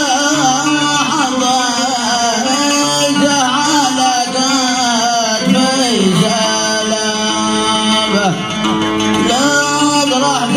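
A male singer sings a long, wordless-sounding melismatic line, his voice sliding up and down, accompanied by an oud.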